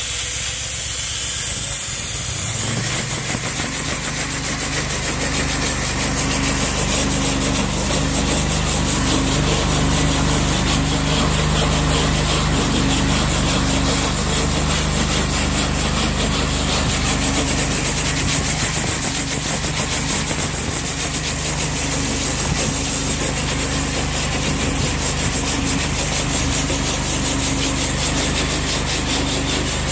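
Tarantula 1/2" high-pressure jetting nozzle spraying water inside a clear plastic tube: a steady, loud hiss of spray over a steady low hum.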